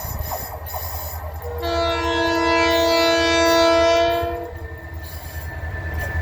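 Horn of TCDD diesel-electric locomotive DE 33077 sounding one long blast of about three seconds, a chord of several steady tones. Under it and around it, the low rumble and wheel clatter of the slow-moving freight train.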